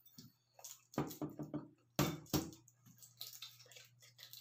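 A balut duck egg's shell being cracked and picked open by hand at its rounded end: a few sharp cracks about one and two seconds in, with small crackles of shell between.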